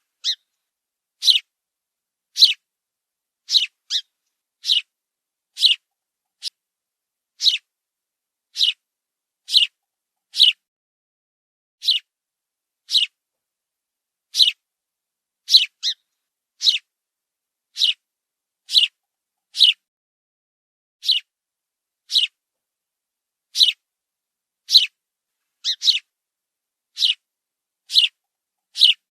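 Sparrow chirping: short single chirps repeated about once a second, with silence between them.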